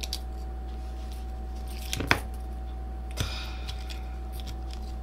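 A few short clicks and taps of small camera parts being handled and fitted, the loudest about two seconds in and another about a second later, over a steady low hum.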